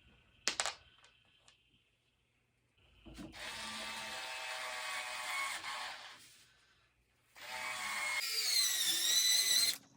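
A sharp click, then an electric drill running in two bursts of about three seconds each, driving screws into wooden boards; in the second burst the motor's whine dips in pitch and climbs back.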